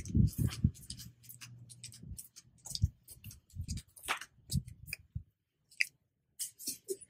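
Irregular soft taps and scuffs of someone walking on a paved path, mixed with rubbing and bumping of the handheld recording phone.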